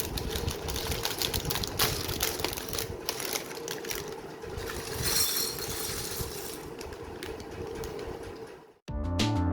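Plastic Lego bricks clicking and rattling as they are handled, over a faint steady hum. Music with a beat starts abruptly near the end.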